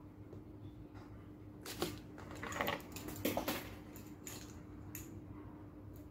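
Small metal bag fittings (screws and washers) clinking and clicking as they are handled and screwed into a leather bag. A cluster of sharp clicks and rattles comes in the middle few seconds.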